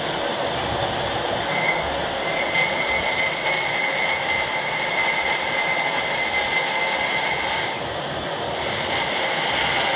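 Lathe turning a large steel shaft: a steady machine noise with a high-pitched whine from the cutting that sets in about two seconds in, breaks off briefly near the end and then resumes.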